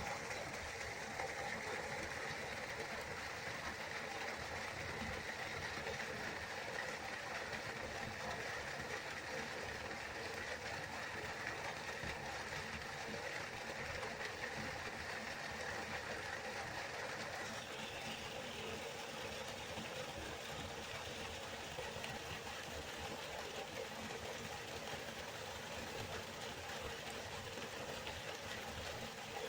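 Waterfall: a steady rush of falling water, its higher hiss shifting slightly about two-thirds of the way through.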